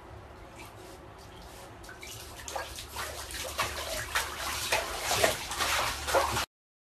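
Bath water splashing and sloshing around a Shiba Inu in a bathtub, over a low steady hum. The splashing grows louder from about two seconds in and cuts off suddenly near the end.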